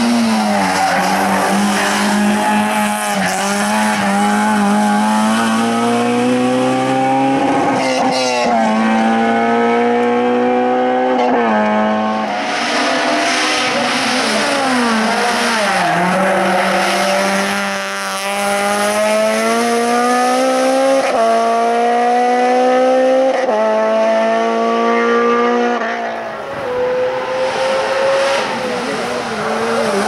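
Hill-climb race cars, a Honda CRX and then a Honda Civic, running at full throttle one after another. Each engine rises steadily in pitch through a gear, then drops sharply at the upshift, again and again.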